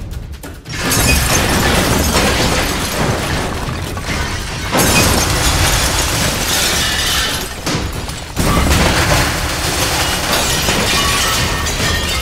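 Warehouse pallet racking and its stock collapsing: loud, continuous crashing and breaking, with fresh surges about five and eight seconds in.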